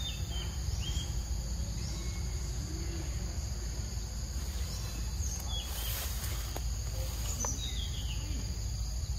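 Insects droning steadily at a high pitch, with a few short bird chirps now and then over a steady low rumble.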